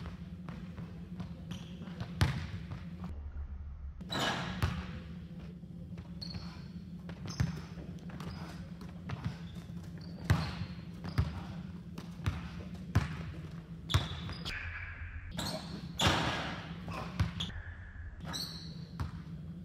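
A basketball bouncing and slapping on a hardwood gym floor, with scattered sharp thuds of play, over a steady low hum in a large gym.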